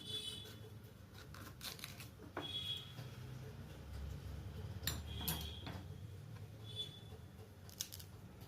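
Kitchen utensils clinking and knocking: several short, separate taps, some with a brief metallic ring.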